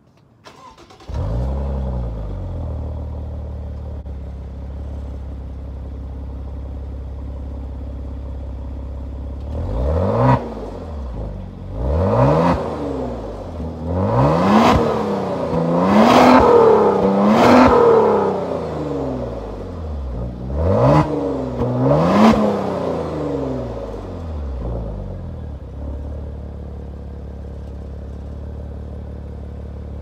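2016 Maserati Ghibli S Q4's twin-turbo V6 through its stock exhaust in Normal mode: it starts about a second in with a quick flare, then idles. Between about ten and twenty-three seconds in it is revved in about seven short blips, each rising and falling in pitch, before it settles back to a steady idle.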